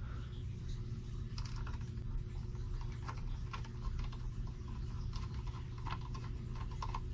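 Irregular small clicks and ticks of a screwdriver turning a small screw into a sheet-metal meter case as the screw is fitted, over a steady low hum.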